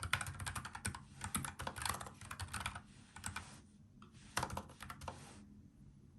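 Typing on a NuPhy Air75 low-profile mechanical keyboard with tactile brown switches: fast runs of key clicks in several bursts with short pauses between them, stopping near the end.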